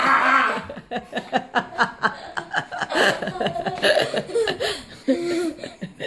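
A loud scream breaks off within the first half-second, then a person laughs in quick bursts, about four or five a second, with a short pause just before the end.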